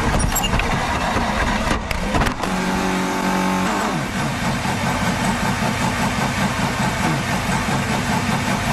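Onboard sound of a 2015 Toro Rosso Formula 1 car with a Renault 1.6-litre turbo V6 running at speed. About two seconds in there is a sharp crash as it hits the barrier. After the impact the engine keeps running with a low, uneven pulsing.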